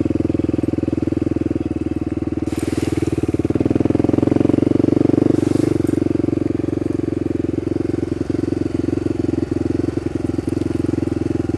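Honda dual-sport motorcycle engine running while the bike is ridden, its note growing louder about four seconds in and easing back after six. Two brief rushes of noise come at about three and six seconds in.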